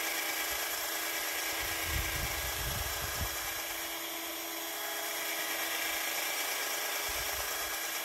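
Cordless drill running steadily, its bit widening a hole in a plastic bottle cap, with a low rubbing rumble from the bit working the plastic about two seconds in and again briefly near seven seconds.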